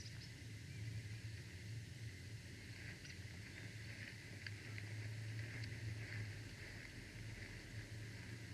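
Wind rumbling steadily against an outdoor nest-camera microphone, with a few faint, short high chirps from small birds about three to seven seconds in.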